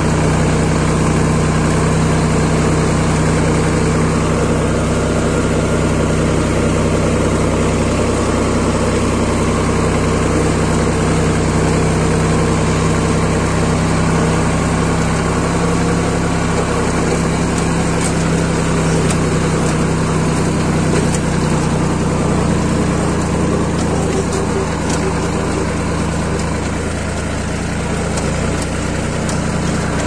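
Farm tractor's diesel engine running steadily while driving, heard from the driver's seat. The pitch stays constant, and the sound eases off slightly near the end.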